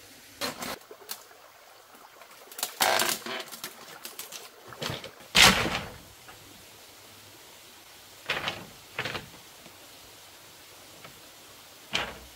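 Irregular rustles and knocks of a person moving about in a bamboo-pole and tree-root shelter, coming in scattered bunches. The loudest is about five and a half seconds in, with a few fainter ones later.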